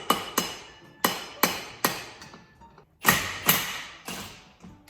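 Hammer blows on metal, about eight in three quick groups, each ringing briefly.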